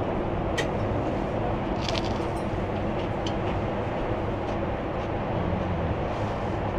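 Steady cabin noise of a Boeing 747-8 in cruise flight, an even low rush of engines and airflow, with a few light clicks of tableware as caviar is served.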